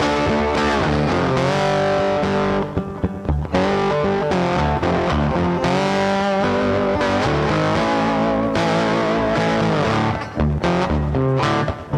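Background music led by a distorted electric guitar, with sustained notes over a steady beat.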